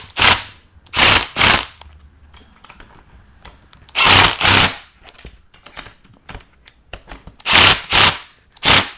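Milwaukee M18 cordless impact driver hammering in short bursts, about eight brief trigger pulls, mostly in pairs, as it snugs the bolts of a door hinge.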